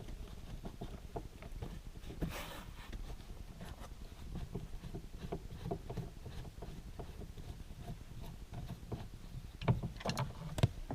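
Phillips screwdriver working the visor's mounting screws out of the headliner: small irregular clicks and scrapes of the driver and handling, with a louder clatter near the end as a screw is dropped.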